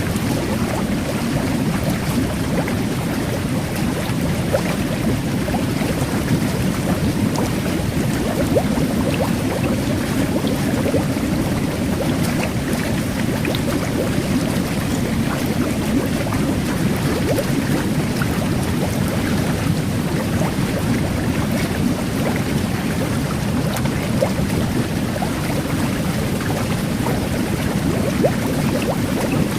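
Jet bath water churning steadily under the jets, with a fine crackle of tiny carbonated bubbles fizzing over it.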